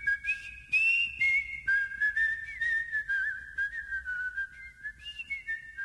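A tune whistled by mouth, its notes stepping up and down, at times with a second whistled line alongside.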